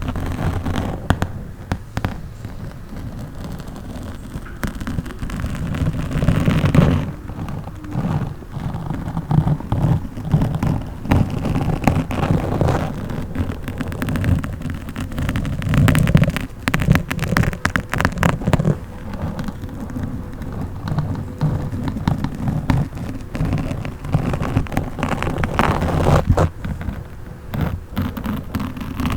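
Microphone scratching at close range: a dense, uneven run of crackles and pops over a low rumble, swelling and fading in loudness.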